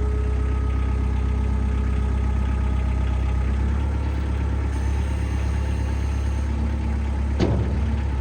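An engine idling steadily, with a single sharp knock near the end.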